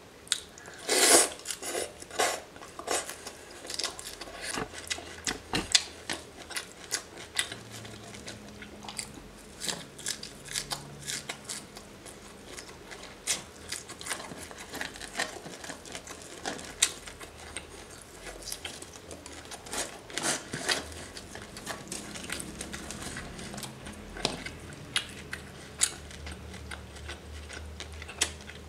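Close-miked eating sounds: wet chewing, lip smacks and sharp mouth clicks, irregular all through, with the strongest about a second in, from raw seafood dipped in sauce and eaten by hand.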